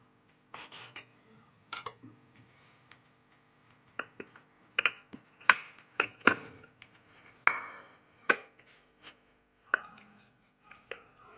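Kitchen work: a series of irregular sharp knocks and clicks, like utensils and cookware being handled, loudest and most frequent in the middle, with a few softer scrapes near the start.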